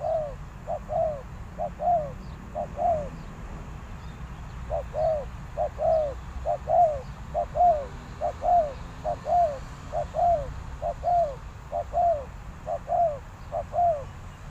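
Spotted dove cooing: a quick run of short, arched coos, broken by a pause of about two seconds near three seconds in and then carrying on steadily, over a low rumble.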